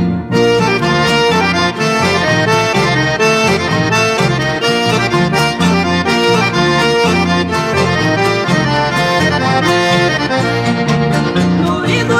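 Accordion-led instrumental music with a steady, regularly alternating bass line. A singing voice starts right at the end.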